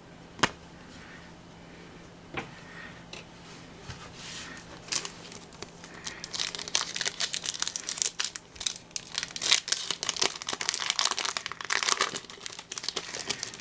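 A few light clicks, then from about six seconds in a Pokémon TCG booster pack's foil wrapper crinkling and tearing as it is opened.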